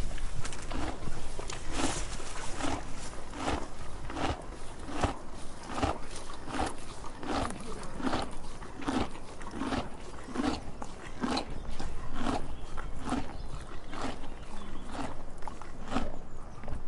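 Donkey chewing its food: a steady, even rhythm of crunchy chews, roughly one to two a second.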